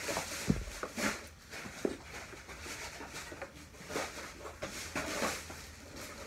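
Handling noise from packing a soft suitcase: rustling and scattered soft knocks as shoes and clothes are moved, with one heavier thump about half a second in.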